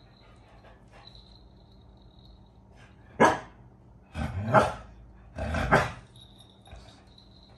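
Phu Quoc ridgeback dog barking three times: one short bark a little past three seconds in, then two longer barks about a second apart.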